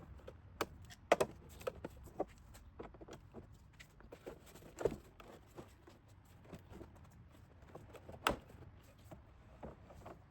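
Faint, scattered clicks and knocks of hands handling and refitting a car's plastic air intake duct, the sharpest about a second in, near five seconds and just past eight seconds.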